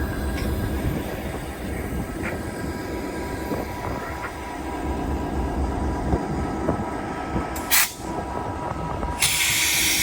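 Diesel locomotive running with a steady low drone and a few light clanks, then two loud bursts of air hissing: a short one near 8 seconds and a longer one near the end.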